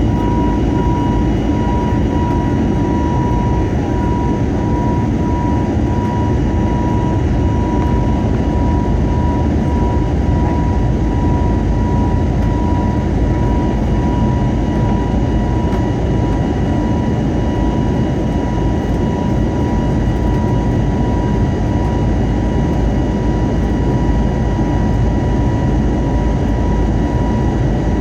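Cabin noise of an Airbus A320-family jet climbing after takeoff: a steady, loud roar of engines and airflow with a steady high whine over it.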